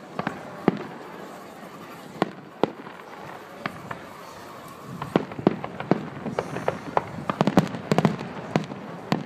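Aerial fireworks shells bursting. Scattered single bangs come first, then a quick run of many bangs from about five seconds in.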